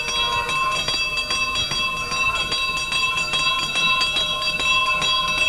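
Bells ringing continuously, several steady ringing tones held throughout with a rapid, irregular clatter of strokes.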